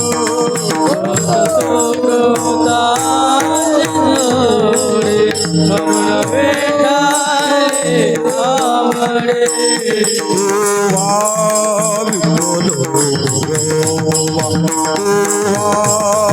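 Devotional bhajan music: a wavering sung melody over steady held tones, with a continuous metallic jingle of hand-held percussion and drumming.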